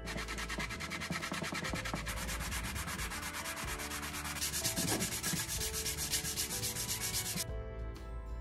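Pine wood being sanded: a rough rasping with a fast, even pulse that grows brighter about halfway through and stops abruptly near the end.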